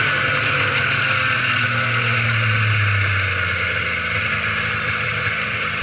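Arctic Cat 800 triple snowmobile's three-cylinder two-stroke engine running on the trail. Its low engine note eases off and fades from about halfway through, with the sound getting a little quieter toward the end.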